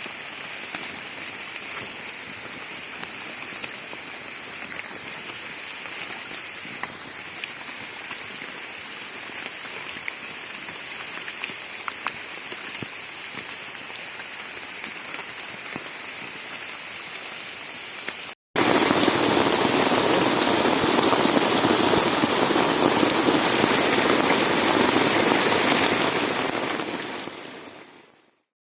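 Rain falling steadily, with scattered drops ticking close by. About two-thirds of the way through it cuts suddenly to much louder, heavier rain, which fades out near the end.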